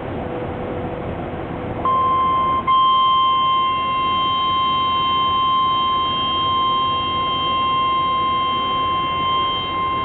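NOAA Weather Radio warning alert tone: a steady 1050 Hz beep that comes on about two seconds in and holds unbroken. It signals that a warning broadcast is about to follow, here a flash flood warning. Before the tone there is only a steady background noise.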